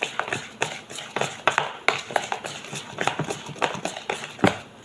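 Thick semolina batter being stirred by hand in a mixing bowl, the utensil knocking and clacking irregularly against the bowl's sides, a few taps a second.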